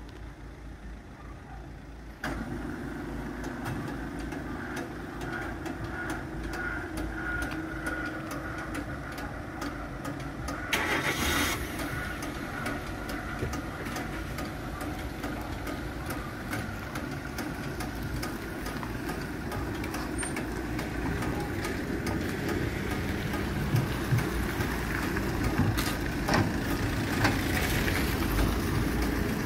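Car engines idling, then cars driving over a railway level crossing as the barriers lift, growing louder near the end.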